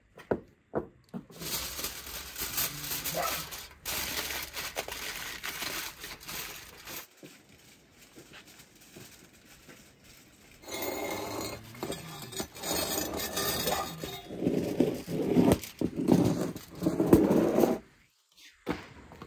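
Foil-covered metal buckets being handled and set into a wood-fired brick oven: foil crinkling, with metal scraping and clinking on the oven floor, in two long stretches separated by a pause.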